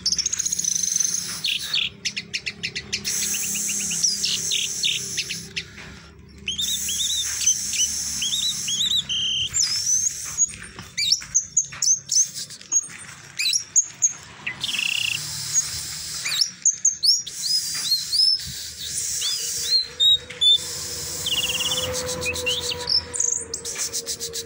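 Orange-headed thrush (anis merah) singing a long, varied song of quick whistled notes that glide up and down, with short trills and brief pauses between phrases: the drawn-out 'teler doyong' song style prized by Indonesian bird keepers.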